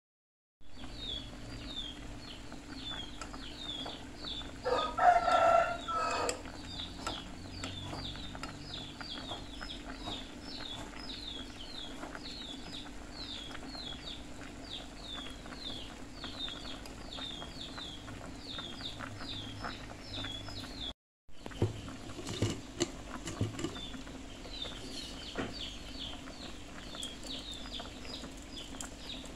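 A rooster crows once about five seconds in, over high bird chirps repeating about twice a second and a low steady hum. A few light knocks follow near the end.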